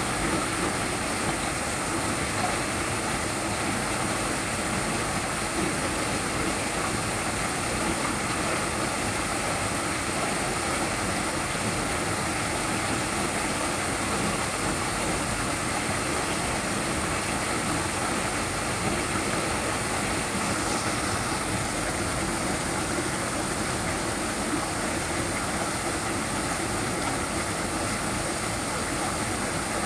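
Small waterfall splashing: a steady, unbroken rush of falling water.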